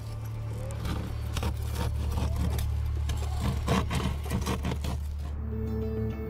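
Scraping, knocking and clicking of rescue work on a crashed car, over a steady low engine hum. About five seconds in these sounds stop and soft music begins.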